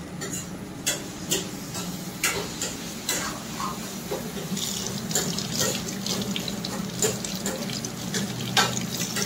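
Kitchen water sloshing and splashing, with scattered clicks and clinks of utensils throughout and a low steady hum under it.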